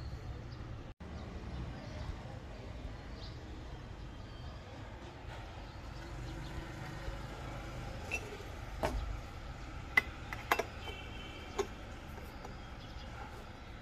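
Metal parts of a 9Barista espresso maker clicking and clinking as the portafilter and the upper chamber are fitted together. There are a handful of sharp clinks, the loudest about two thirds of the way in, over a steady low rumble.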